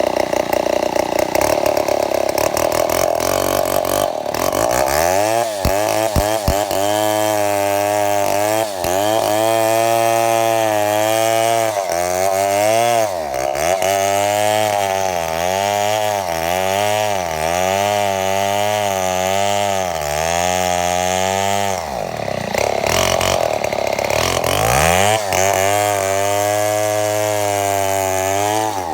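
Two-stroke chainsaw engine running unevenly, its speed rising and falling over and over, with a few deeper dips where it nearly bogs down before picking up again. The saw is out of condition.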